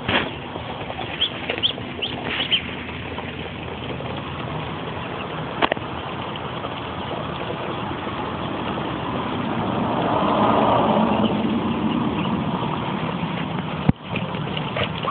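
Steady rumbling background noise that swells about ten seconds in, with a few short high peeps from Muscovy ducklings near the start and a single sharp click.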